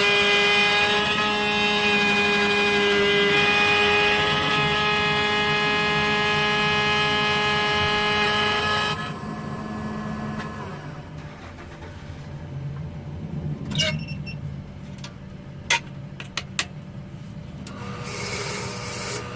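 Laser key-cutting machine running with a steady whine while cutting a high-security key, stopping about nine seconds in. A few sharp clicks follow, and a short rasping noise near the end.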